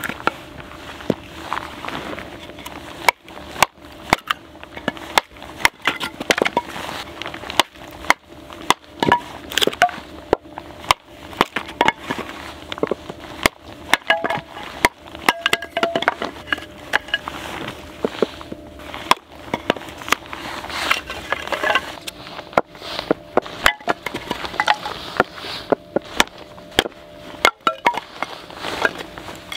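Wood fire crackling in a small portable charcoal grill, with frequent irregular sharp pops and cracks.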